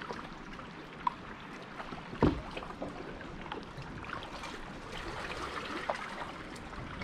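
Water trickling and dripping around a kayak as it glides through calm water, with small splashes and ticks throughout. About two seconds in comes a single loud thump.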